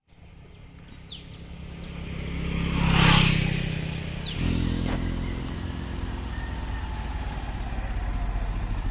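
A motor vehicle engine running, swelling to a peak about three seconds in, then settling to a steady low engine note from about four and a half seconds.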